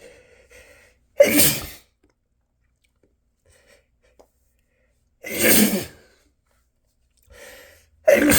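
A man sneezing hard three times, a few seconds apart, the third near the end; the first and last are each preceded by a short breath in. These are allergy sneezes brought on by a tickling nose.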